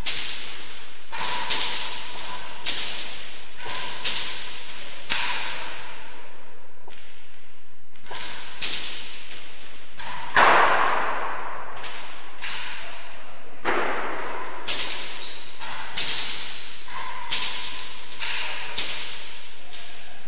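A rally of rackets: the hard ball cracks off the rackets, front wall and floor in quick succession, each hit ringing and echoing through the enclosed court. The loudest crack comes about ten seconds in.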